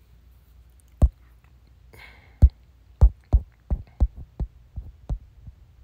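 Irregular sharp taps and knocks, sparse at first and then coming faster, with a brief soft rustle about two seconds in: handling noise while a scripture passage is looked up.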